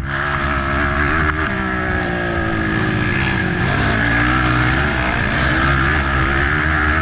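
Race ATV's engine running hard under varying throttle, its pitch rising and falling; it drops about three seconds in, then climbs again.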